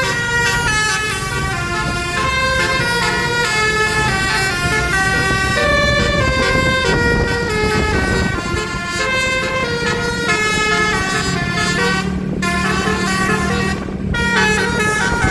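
Basuri musical air horn on a Wulan Jaya bus playing a quick tune, its notes stepping up and down in pitch, with the bus's engine running underneath. The tune breaks off briefly twice near the end.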